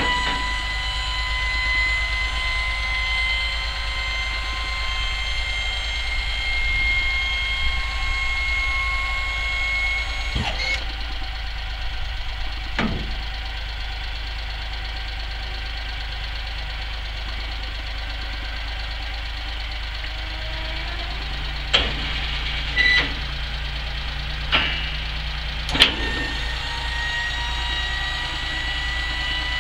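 1993 Suzuki mini truck's three-cylinder engine idling under the steady whine of the dump box's lift pump. The whine slowly rises in pitch while the box tilts up and stops about ten seconds in. A few sharp clunks come as the box is lowered, and the whine starts again near the end as the scissor lift raises the box.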